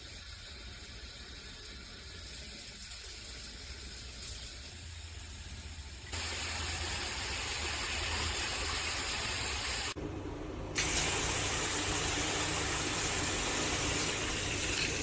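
Water spraying from a handheld filtered shower head, a steady hiss that steps up louder about six seconds in, briefly thins out around ten seconds, then comes back louder still.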